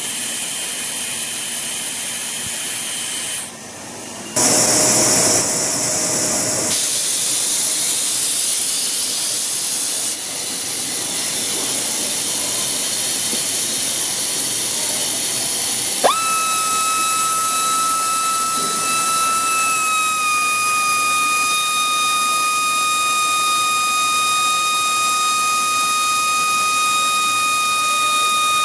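Gison GPD-231 air-powered drill running on compressed air: a steady hiss, louder for a couple of seconds near the start, then, just past halfway, a high steady whistling whine from the air motor sets in and drops slightly in pitch a few seconds later.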